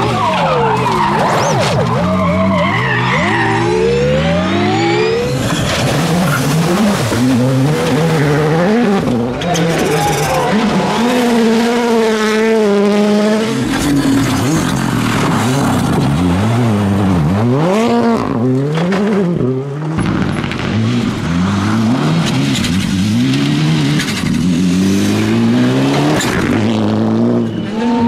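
Several rally cars driven flat out one after another, with engines revving hard and the pitch climbing and dropping sharply through gear changes and lifts off the throttle. Tyre noise on gravel and tarmac runs underneath.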